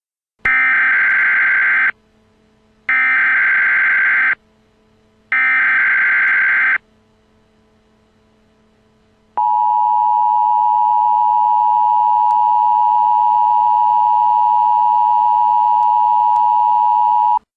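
Emergency Alert System opening sequence. Three short bursts of SAME digital header data, each about a second and a half, are followed after a pause by the steady two-tone EAS attention signal, held for about eight seconds.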